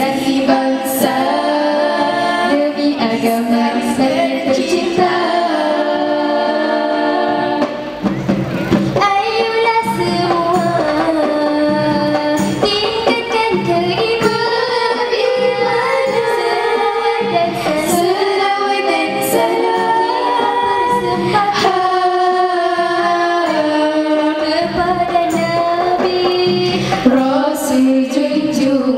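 Female nasyid group singing a melodic song together into microphones, amplified over the hall's PA, with percussion accompaniment and occasional sharp hits.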